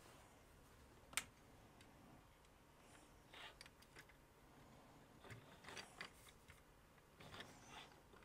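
Near silence with faint handling of a hard plastic toy vehicle: one sharp click about a second in, then soft scrapes and light taps as it is turned over.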